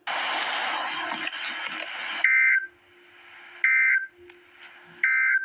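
About two seconds of loud hiss-like noise, then the Emergency Alert System end-of-message code: three short, identical two-tone data bursts about 1.4 s apart, signalling that the alert broadcast is over.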